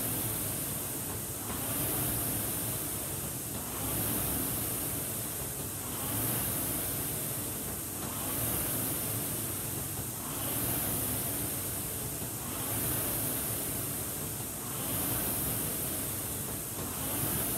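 Concept2 rowing machine's air-resistance flywheel whooshing with each stroke, swelling and fading in an even rhythm of about 28 strokes a minute.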